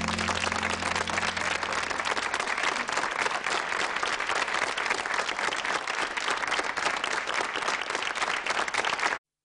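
Studio audience applauding, with the band's last held chord dying away in the first second or so. The applause cuts off suddenly near the end.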